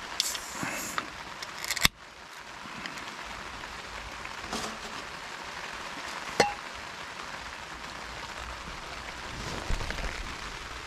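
Steady rain on a tarp overhead, with a beer can being handled. There is a brief hiss at the start, a sharp click about two seconds in, and a short ringing metallic clink a little past six seconds as the can goes into a stainless steel mug.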